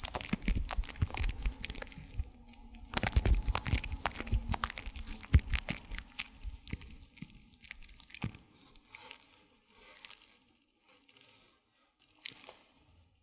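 Close-miked ASMR haircut sounds: crunchy, crinkling rubbing and scrubbing right at the microphone. Dense and loud in the first half, then sparser and quieter after about eight seconds.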